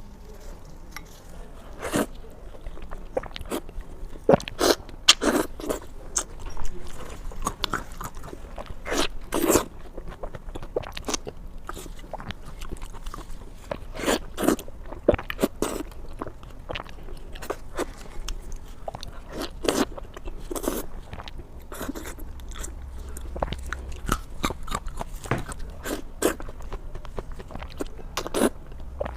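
Close-miked mouth sounds of a person biting and chewing food: irregular crunchy bites and chewing, one after another, some much louder than others.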